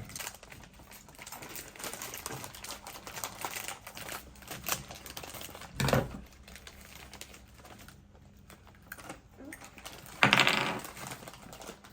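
MRE plastic packets and wrappers being handled and opened: irregular crinkling and clicking, busiest in the first half, with a short louder burst about six seconds in. A brief vocal sound comes near the end.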